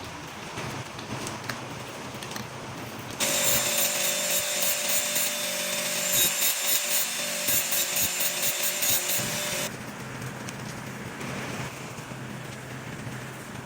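Power grinder grinding the tip of a drill bit: a loud rasp of metal on the abrasive over a steady motor whine. It starts about three seconds in and stops after about six and a half seconds, with a steady hiss underneath.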